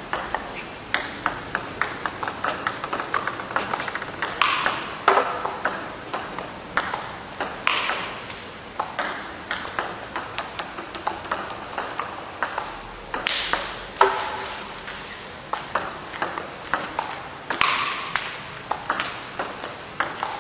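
Table tennis rally: plastic balls clicking off the paddles and the table several times a second, with a few louder hits every few seconds. The player's bat is faced with Milky Way Neptune long-pimple rubber, chopping and lifting heavy backspin balls.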